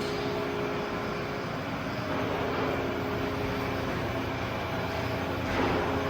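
Steady machine-shop hum: running machinery and air handling giving a constant drone with a few fixed tones over a wash of noise, with a brief louder hiss about five and a half seconds in.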